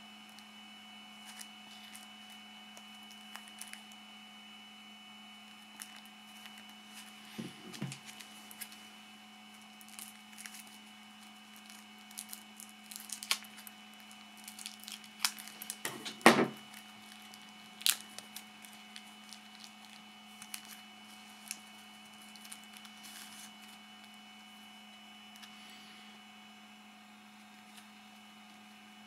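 Thin plastic packaging crinkling and rustling as it is handled, with a cluster of sharper snips and clicks from scissors cutting the bag open about halfway through, the loudest near the middle. A steady faint hum runs underneath.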